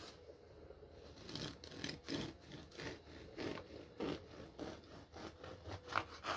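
Serrated bread knife sawing back and forth through the crust of a loaf of homemade bread, a rasping scrape with each stroke, about two strokes a second.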